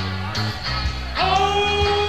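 Live rock and roll band playing with singing, heard as a taped radio broadcast. A long held note comes in just over a second in over a steady drum beat.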